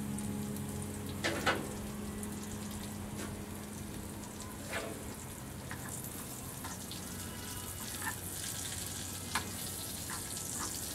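Thin chicken breast slices and butter-basted asparagus sizzling on a hot gas grill, a steady frying hiss. A few sharp clicks of metal tongs against the grate come through, two of them close together about a second and a half in.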